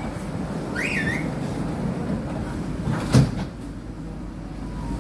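Passenger doors of a C151C MRT train sliding shut and closing with a single thud about three seconds in, over the steady hum of the train standing at the platform. A short squeal is heard about a second in.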